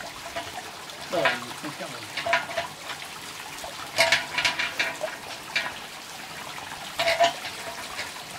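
Water trickling steadily, broken by about five short bursts of metallic clinking and rattling as a chain is handled on the lid of a large metal distillation pot.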